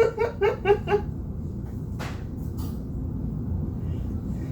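A person laughing in five quick bursts, then a single sharp hiccup about two seconds in.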